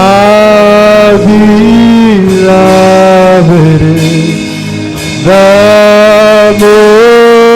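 Worship music: long held melody notes, each lasting one to two seconds, over steady sustained backing chords, with a brief drop in loudness about halfway through.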